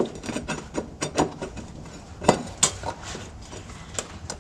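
Metal locking ring of a fuel pump module being seated and worked around the pump opening on a truck's fuel tank: a series of irregular sharp metallic taps and clicks, the loudest pair about two and a half seconds in.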